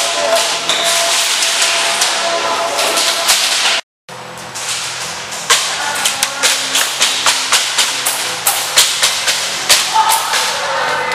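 Background music with a steady beat, cutting out completely for an instant about four seconds in.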